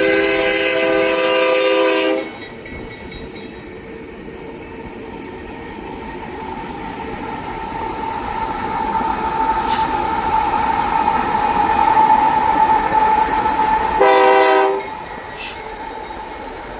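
BNSF locomotive air horn sounding a chord for about two seconds. The rolling train follows, with a steady high ringing tone that slowly grows louder, then a second short horn blast near the end.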